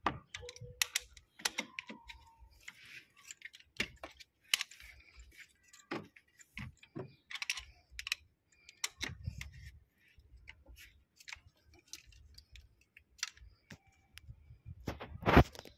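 Scattered metal clicks and clinks of hand tools as a spark-plug socket and extension are handled and fitted down into the spark-plug wells, with one sharper knock near the end.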